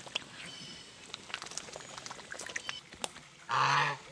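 Domestic goose honking once, a loud harsh call near the end, after a stretch of faint clicks and splashes as it dabbles its bill in the shallow creek water.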